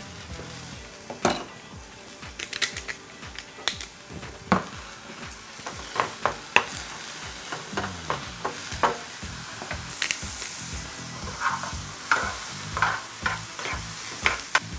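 Sliced mushrooms sizzling in oil in a nonstick frying pan while a wooden spoon stirs them, with frequent short clicks and scrapes of the spoon against the pan.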